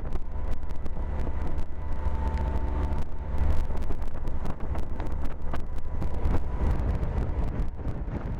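A boat engine running steadily under way, a low hum with a steady pitched drone over it, with wind buffeting the microphone in irregular crackles.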